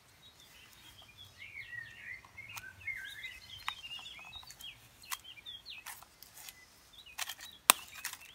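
Birds singing and chirping in short, quick phrases. About halfway through come a few sharp clicks, the loudest one near the end, from hands working tape around a tinfoil wrap.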